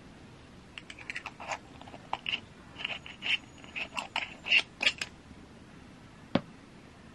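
Metal screw cap twisted onto a glass ink bottle: a quick run of scraping clicks from the threads. About six seconds in, one sharp knock as the bottle is set down on the desk.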